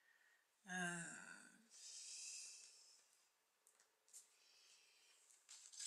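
A woman's short wordless hum, followed by a breathy sigh, then a few faint light clicks of a small card being handled.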